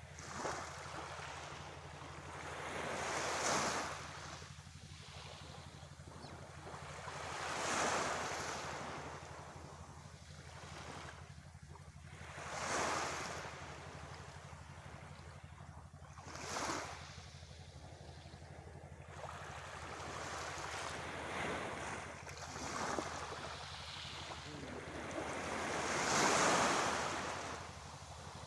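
Sea waves breaking and washing in, each surge swelling and falling away about every four to five seconds, over a steady low hum.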